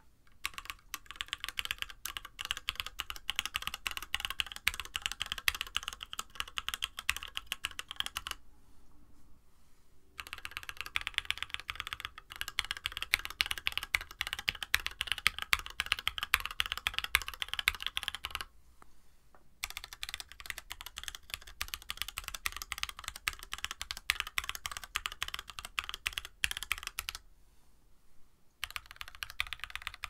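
Steady typing on a Mode65 mechanical keyboard with stock, unlubed SP-Star Meteor White linear switches in an aluminum plate and GMK Darling clone keycaps, a quick run of key clacks. It comes in four stretches with short silent breaks between them, each stretch a different mounting setup (top mount or stack mount, with or without PCB foam).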